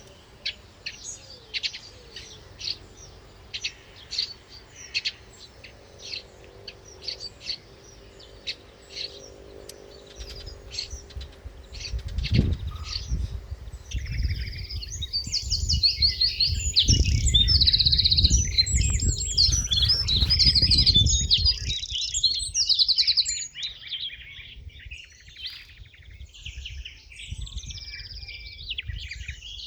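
Birds chirping in short separate calls, thickening about halfway through into a dense chorus of trilling birdsong. A low rumble runs under the middle stretch.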